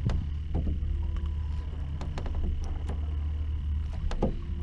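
Scattered sharp clicks and knocks of a hooked sea bass and the fishing line being handled by hand, over a steady low rumble.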